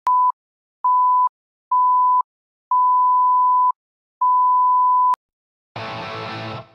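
Film-leader countdown beeps: five steady beeps at one high pitch, roughly one a second, the last two longer, ending with a sharp click about five seconds in. Music starts near the end.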